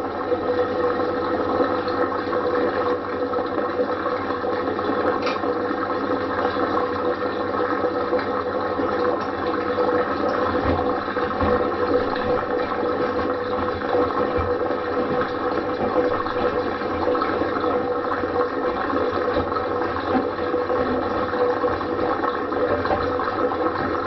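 LG Direct Drive front-loading washing machine running a quick-wash cycle: water swishing in the turning drum over a steady mid-pitched hum, with a few soft knocks.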